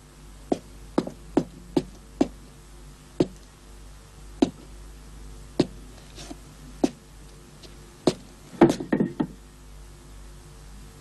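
Footsteps on a hard street: sharp single steps at uneven intervals, about one a second or faster, with a quick flurry of knocks about eight and a half seconds in, over a faint steady hum.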